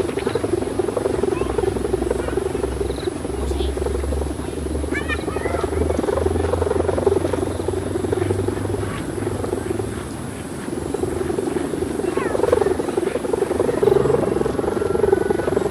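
Steady pulsing buzz from the hummer of a large ram raman kite flying in strong wind, over low wind rumble on the microphone.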